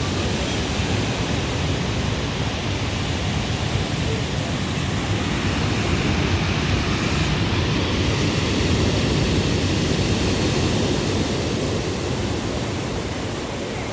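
Sea waves washing on the shore, a steady rushing noise that builds a little in the middle and eases near the end.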